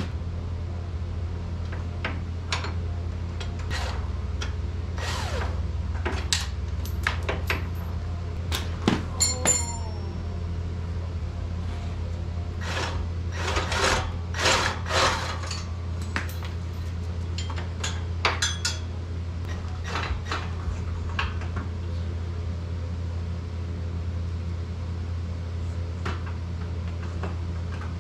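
Hand tools working on car parts: scattered metallic clicks, clinks and knocks, clustered about 13 to 15 seconds in, with one ringing clink about nine seconds in, as the car is taken apart to remove the engine. A steady low hum runs underneath.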